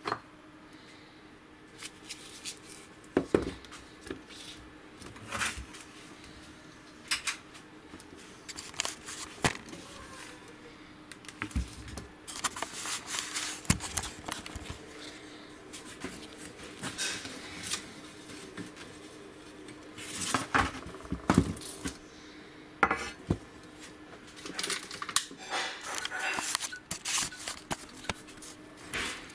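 Cheap katana, its blade not pinned into the handle with mekugi, being handled: irregular metallic clicks and clinks from its fittings and several short scraping sounds, over a faint steady hum.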